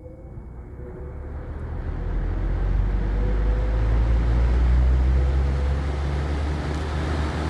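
Electric fan spinning up to speed, its airflow rushing over the microphone with a deep rumble; the noise builds over the first few seconds and then holds steady, with a faint motor hum rising slightly in pitch.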